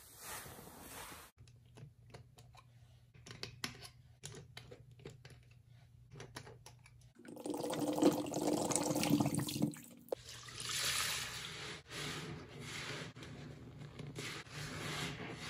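Wet cleaning sponges squeezed and squished in thick soapy foam, with small crackles and wet squelches. In the middle comes a louder stretch of liquid soap pouring from two bottles onto a sponge in a sink.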